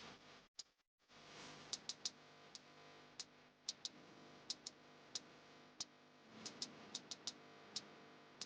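Faint, sharp ticks at uneven spacing, two or three a second, over a low steady background.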